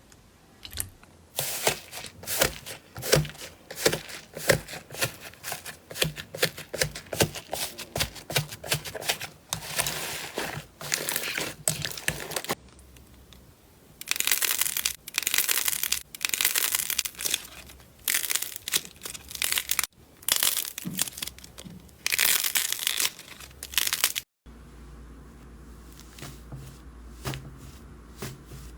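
Slime being squeezed and stretched by hand, making dense runs of short crackling, crinkling sounds that stop abruptly twice where clips change, the last part quieter.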